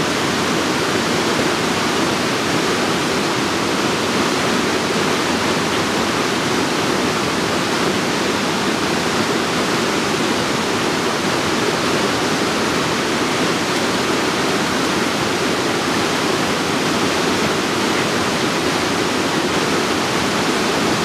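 Waterfall rushing steadily: a constant, even wash of falling water.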